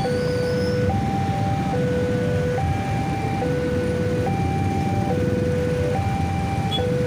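Railway level-crossing warning alarm sounding its two-tone signal, a low and a high note taking turns a little under a second each, warning of an approaching train. Underneath it, a crowd of waiting motorcycle engines idle.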